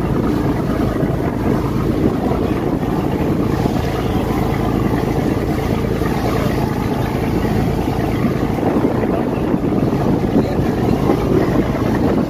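Boat under way: its engine running steadily beneath water rushing along the hull, with wind buffeting the microphone.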